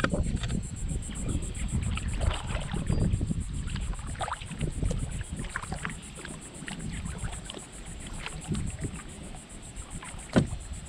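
Kayak moving through calm water: small splashes and drips of water against the hull over a low wind rumble on the microphone. One louder knock about ten seconds in.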